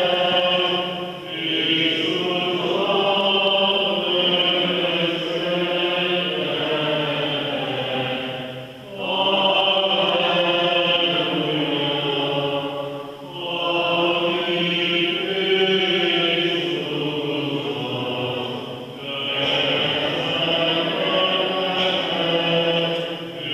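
Byzantine-rite liturgical chant. The voices sing in long, sustained phrases with brief breaks between them every four to eight seconds.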